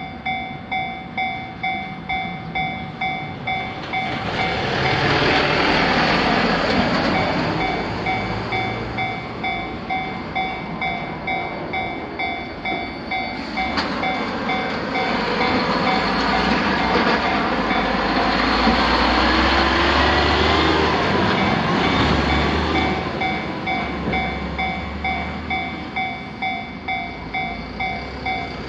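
Japanese railroad crossing warning bell ringing at about two dings a second. A train passes twice over it, first about four seconds in, then again from about fifteen seconds in, with a low rumble under the second passage.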